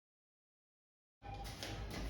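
Dead silence, then about a second in the sound cuts in abruptly as a low rumble of background noise with a few light clicks.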